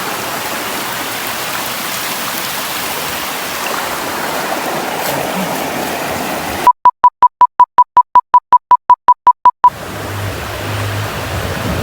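Steady rush of river water, cut about two-thirds of the way through by a rapid string of about fifteen short, loud electronic beeps at one pitch, about five a second for some three seconds, with dead silence between them; the water sound then returns.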